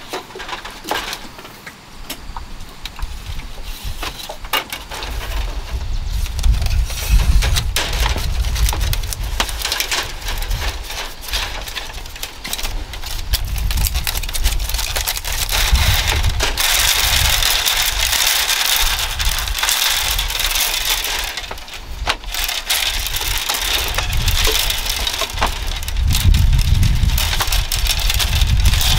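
Thin bamboo strips clicking and rustling as they are bent and woven into a conical hat frame, with many small snaps and scrapes, over an uneven low rumble.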